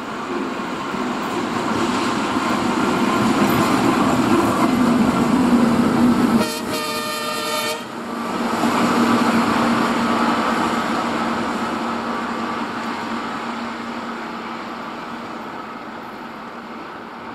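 ChME3 shunting diesel locomotive running past, its six-cylinder diesel engine growing louder as it approaches. About six seconds in, one horn blast sounds for just over a second. After that the engine sound slowly fades as the locomotive moves away.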